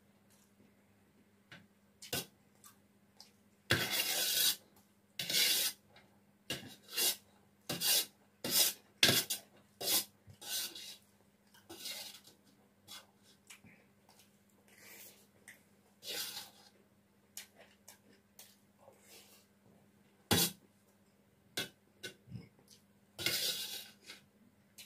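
Metal spoon scraping and clinking on a stainless steel plate while scooping up fried rice: an irregular run of short clicks and scrapes, with longer scrapes about four seconds in and again near the end.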